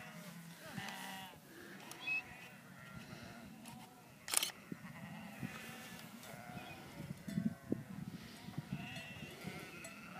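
A large flock of sheep, ewes and lambs, bleating continuously, many calls overlapping at different pitches. A single sharp click about four seconds in.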